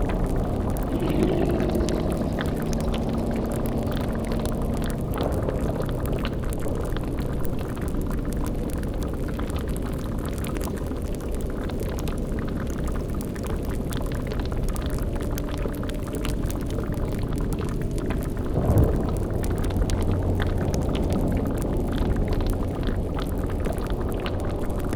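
Layered horror-ambience sound effects: a steady low rumble under bubbling, boiling liquid from a cauldron effect, with low held eerie tones. There is a brief louder swell about nineteen seconds in.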